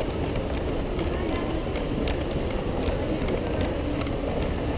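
Ride-on scale model train rolling along the track beside the microphone: a steady rumble with irregular light clicks of wheels on rail, over a murmur of voices.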